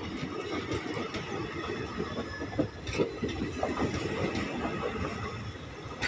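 Express train passenger coaches rolling past, with a steady rumble and the clatter of wheels over rail joints. A sharper knock comes about three seconds in.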